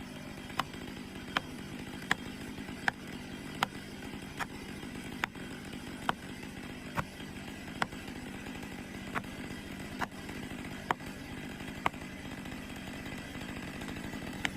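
Stihl two-stroke chainsaw engine running steadily at an even pitch, with a sharp click about once a second that slowly spaces out.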